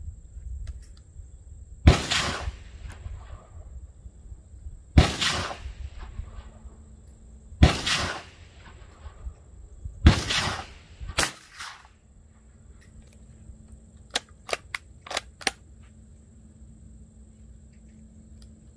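Four rifle shots about two and a half to three seconds apart, each followed by a rolling echo. Near the middle comes one sharper crack, then a quick run of about five fainter cracks.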